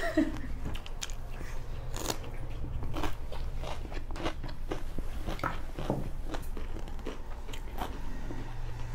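Close-up chewing and crunching of raw radish pieces, with many short, sharp crunches scattered irregularly over a faint steady low hum.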